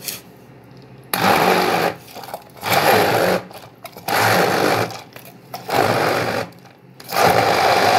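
Stainless-steel hand blender running in five pulses of about a second each, with short pauses between, blending mango, curd and powdered sugar in a plastic beaker.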